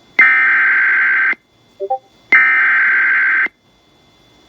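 Emergency Alert System SAME header: two bursts of digital data tones, each about a second long and about two seconds apart, encoding a severe thunderstorm warning at the start of the alert. A few faint short blips sound in the gap between them.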